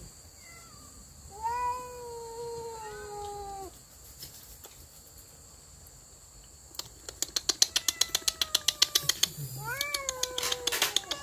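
Cat yowling: one long drawn-out yowl about a second in and a shorter rising-and-falling one near the end, a warning at a dog coming close. From about halfway through, a rapid run of sharp clicks, about five a second.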